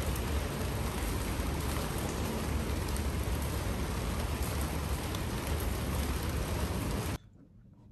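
Steady rain falling and spattering on surfaces, an even hiss that cuts off suddenly about seven seconds in.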